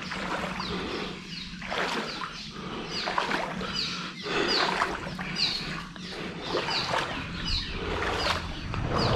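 Legs wading through shallow floodwater, a rushing swish of water with each stride about once a second. Over it come many short, high, falling chirps from animals in the surrounding marsh.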